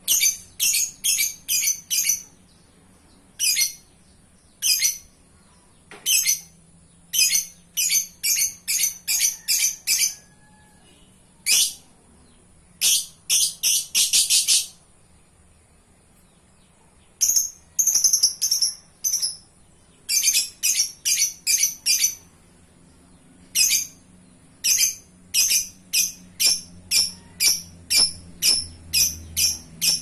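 Lovebird calling: loud, short, high-pitched chirps given in quick runs of several notes. The calls break off for about two seconds midway, then come back in a steady series of about two calls a second near the end.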